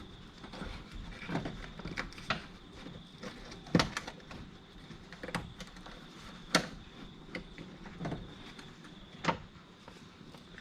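Scattered sharp clicks and knocks of hands working the plastic door handle surround off a car door, loudest about four, six and a half and nine seconds in.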